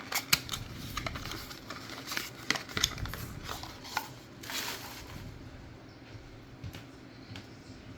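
A small product box being handled and opened by hand: a quick run of clicks, taps and rustles, then a short rustling swish about four and a half seconds in, fading to a few faint taps.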